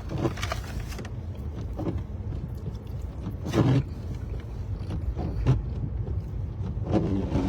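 Steady low rumble of a car driving, heard from inside the cabin, with a few short louder sounds over it, the loudest about three and a half seconds in.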